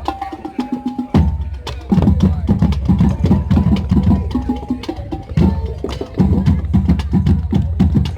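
Marching band music: drums beating a steady, loud rhythm over a heavy low bass, with short held pitched notes above. The low drums drop out for about a second near the start.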